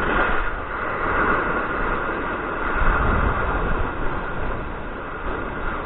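Strong wind of about 30 miles an hour blasting the microphone: a steady rush of noise with a low rumble, easing a little and swelling again.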